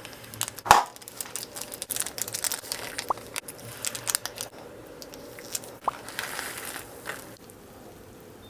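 Close-up eating and food-handling sounds: crinkling and crunching with many sharp clicks, a loud snap just under a second in, and a couple of short wet smacks.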